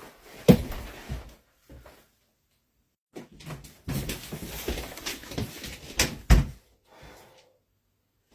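A door being opened and shut, with sharp knocks and a stretch of shuffling and rustling as people hurry through it. The loudest knocks come about half a second in and twice near the end.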